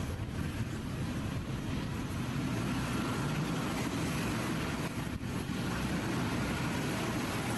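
Steady, even jet aircraft noise, a low roar that holds without breaks.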